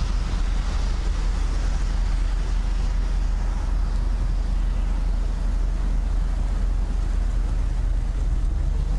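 Steady low rumble of a car driving along a highway, with road and engine noise at an even level.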